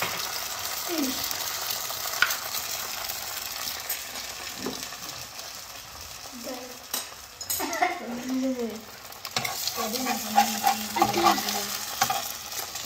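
An egg frying in a dry non-stick pan, cooked without any oil: a steady sizzle, with a spatula scraping and knocking on the pan now and then.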